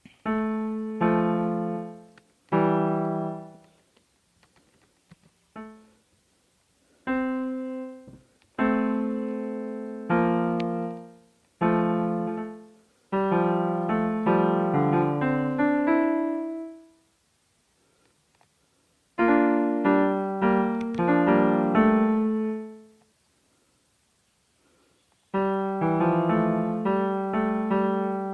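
Piano music played in short phrases of notes and chords that fade out, separated by pauses of a second or more.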